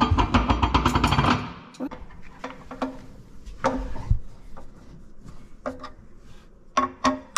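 Metal mounting hardware of a garbage disposal being worked with hand tools under a sink. A fast run of rattling clicks for about a second and a half gives way to scattered clicks and knocks, with two sharper knocks near the end.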